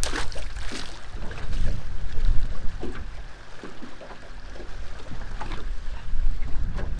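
Strong wind buffeting the microphone, a low, gusting rumble, with scattered short knocks from the boat, the sharpest right at the start.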